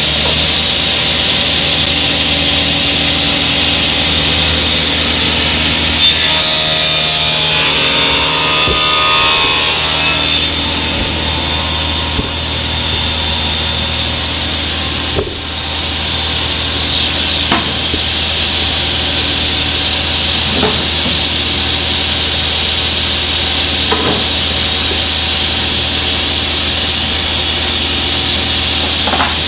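Sliding table saw running steadily. About six seconds in its blade cuts through a panel for roughly four seconds, louder and brighter, then it goes back to spinning freely, with a few light knocks later on.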